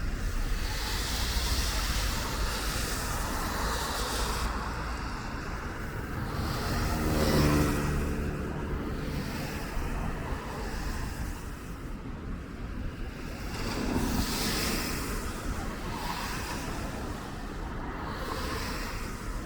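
City street traffic, a steady wash of passing cars and road noise. About seven seconds in, a louder vehicle passes with a pitched engine hum.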